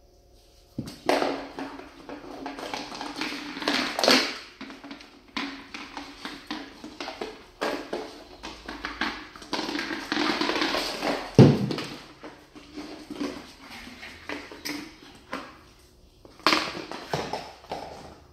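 A puppy playing with a rubber chicken chew toy on a tile floor: irregular knocks, taps and scrapes as the toy and the puppy's claws hit and slide on the tiles, starting about a second in, with one sharp loud knock about eleven seconds in.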